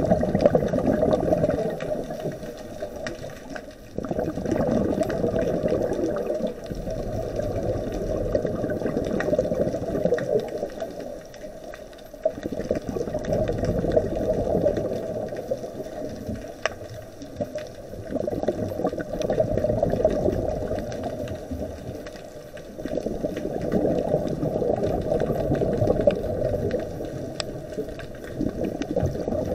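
Scuba diver's exhaled air bubbling out of the regulator, a gurgling rush that swells and fades every four to five seconds with each breath, heard underwater.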